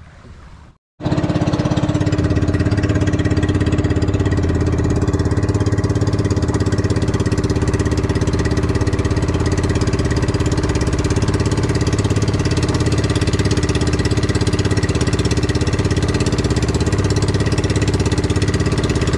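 Engine of a motorized outrigger fishing boat (bangka) running steadily with an even throbbing beat, cutting in suddenly about a second in.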